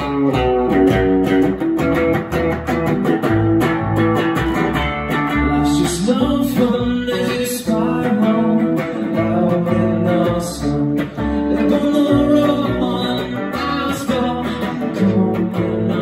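Live band music: an electric guitar and an upright double bass playing a song together, with a man singing.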